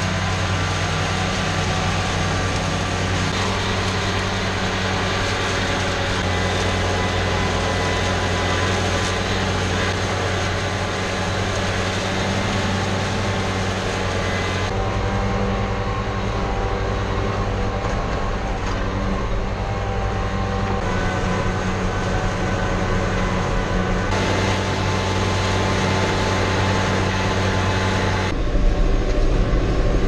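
John Deere 5085M tractor's four-cylinder diesel engine running steadily under way, heard from the cab, with a strong low hum. Its tone changes abruptly a few times, about halfway and again near the end.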